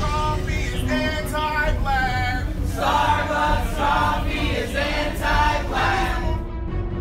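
A crowd of protesters chanting a slogan in unison, in short repeated phrases, over a quiet background music bed; the chanting fades out near the end.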